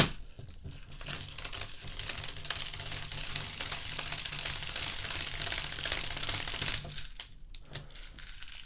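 Odin M12 Sidewinder airsoft speedloader being hand-cranked: a rapid, steady clicking rattle as BBs feed into an M4 magazine. It stops about seven seconds in, leaving a few scattered clicks.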